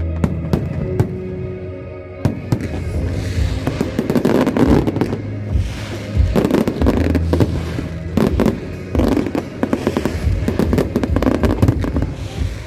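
Aerial fireworks bursting, many bangs at a time in dense volleys over several seconds, with music playing underneath.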